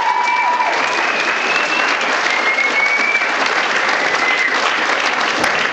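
Audience applauding, steady dense clapping, with a few long high-pitched calls rising over it in the first few seconds.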